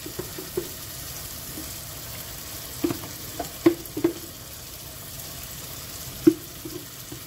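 Chicken and onions frying in a pot with a steady sizzle, while a wooden spatula scrapes and knocks ground chili paste out of a plastic container. There are four sharp knocks close together about three seconds in and one more near the end.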